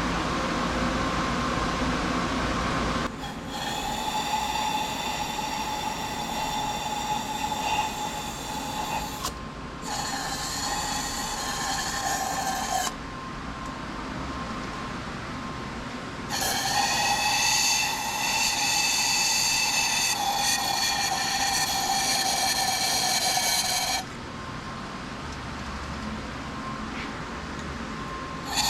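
A motor-driven power tool whining in three runs of a few seconds each, starting and stopping abruptly. The pitch rises briefly as it spins up. There are no hammering blows.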